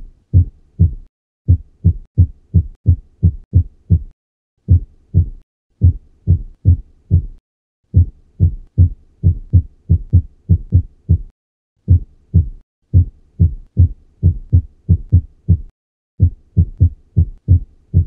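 Heart sounds on auscultation in atrial fibrillation with the rate controlled by medication: paired lub-dub beats (first and second heart sounds) at uneven, irregular intervals, with no steady rhythm.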